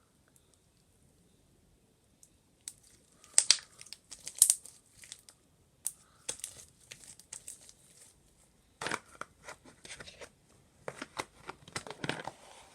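Homemade slime with small beads mixed in being squeezed and stretched by hand, giving irregular sticky crackling and clicking. It starts a few seconds in and comes in clusters.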